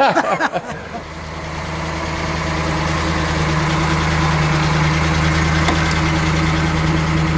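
1969 Chevrolet Camaro Z/28's 302 V8 engine running at a steady pitch, swelling in over the first few seconds and then holding level.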